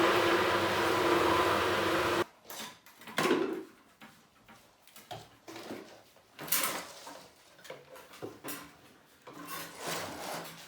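Drainage water pump running with a steady hum, no longer picking up water, then cut off abruptly about two seconds in. After that, scattered knocks and scrapes of things being handled.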